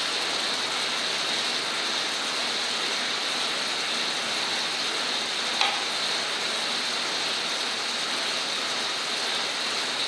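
Xebex air bike pedaled hard: its fan whooshes steadily, with the whirr of the drive.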